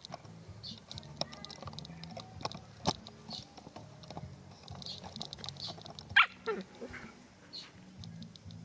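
A pet animal's brief call sliding down in pitch, the loudest sound, about six seconds in, among scattered small clicks and a low steady hum.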